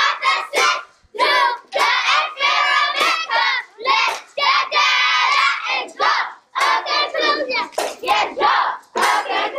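A group of children singing in short phrases with brief breaks between them.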